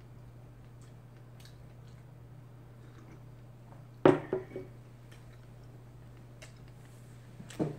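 Ceramic mug set down on a wooden table with a sharp knock about four seconds in, followed by a smaller knock near the end. A low steady hum and faint small clicks run underneath.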